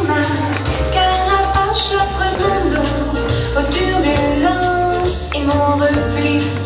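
A song with singing over a steady bass line, with short bright high-pitched hits every second or two.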